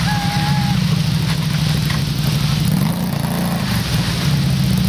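Off-road vehicle engine running steadily at a mud bog, its pitch wavering up and down a little.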